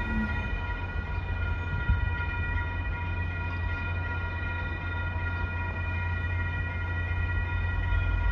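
Railroad grade-crossing warning bell ringing steadily, over a constant low rumble.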